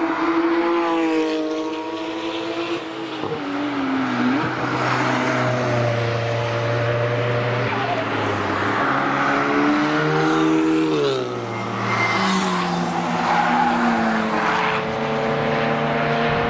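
Several cars driven hard one after another on a racetrack, their engines revving up and dropping back as they shift gears and lift for the corners. Engine notes overlap as one car fades and the next comes through, with tyre noise under them.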